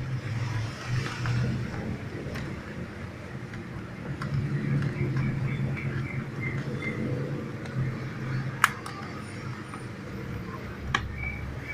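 Plastic clicks and knocks as a projector headlight unit and its plastic housing are handled and fitted together, the sharpest click about two-thirds of the way through. A low steady hum runs underneath, and faint high chirps repeat from about halfway on.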